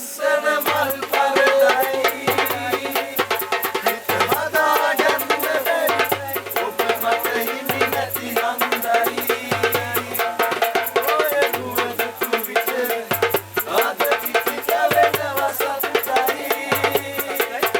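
Music with a fast rattling shaker-like percussion and a short bass note repeating about once every second.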